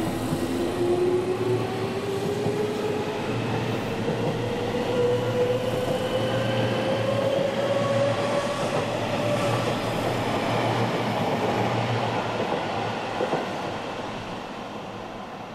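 Electric commuter train accelerating: its motor whine rises steadily in pitch for about the first nine seconds over the running noise of the train on the rails, and the sound eases off near the end.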